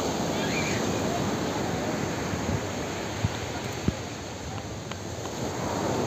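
Big sea waves breaking on a pebble beach, a steady rushing wash of surf, with two short knocks about three and four seconds in.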